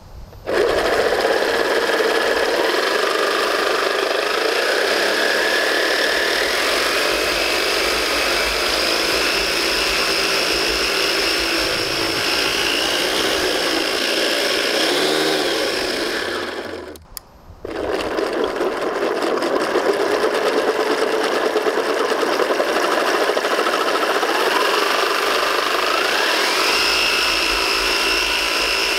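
Electric four-motor gearbox spinning a 3D-printed two-stage water jet through printed spur gears: a loud mechanical whirr and gear whine that climbs in pitch as it spins up. It stops for about a second two-thirds of the way through, then starts again and climbs once more.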